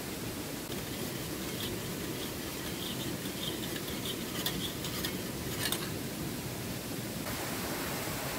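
A spoon stirring a drink in a stainless steel mug: a run of light scraping and clinks against the metal, with a few sharper clinks about four to six seconds in, over a steady rushing hiss.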